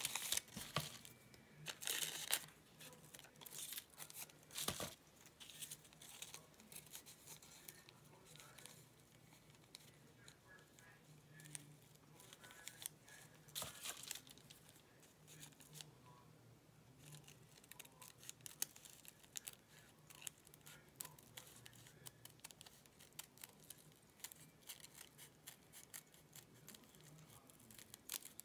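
Faint rustling and crinkling of paper and fabric scraps being handled and peeled apart, in quick sharp bursts, loudest in the first couple of seconds and again briefly around five and fourteen seconds in.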